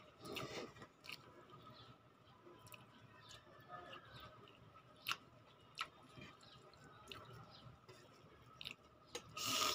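Quiet chewing of instant noodles (pancit canton) and eating sounds, with a short slurp as noodles are drawn in at the start. A few sharp clicks are scattered through, and a louder noisy burst comes near the end.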